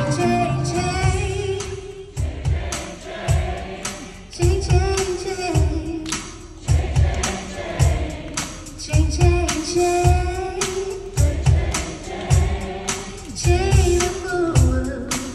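Live soul band with a female lead singer: long held vocal notes over a steady kick-drum beat, cymbals, bass and keyboard.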